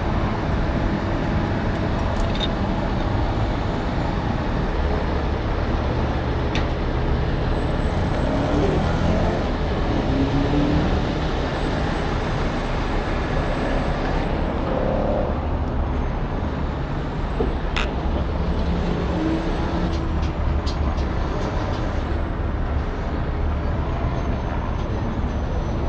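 Diesel engine of a heavy rotator tow truck running steadily, a continuous low drone, with a few light clicks.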